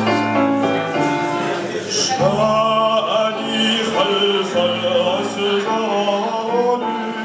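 A man singing into a microphone over instrumental accompaniment, holding long notes.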